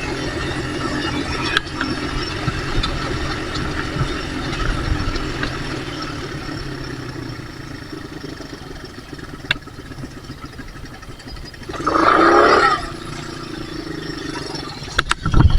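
Small off-road engine running at a steady note that slowly fades, then revving sharply for under a second about twelve seconds in before settling to a lower steady note. A few knocks near the end.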